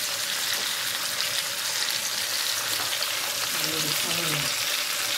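Chicken frying on a stovetop, a steady sizzle.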